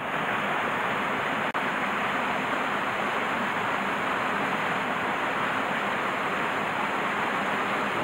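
Mountain stream rushing steadily over rocks and small falls, an even rush of water that cuts out for an instant about a second and a half in.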